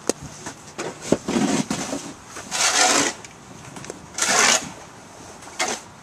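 Snow crunching and scraping in several short noisy bursts, each about half a second long.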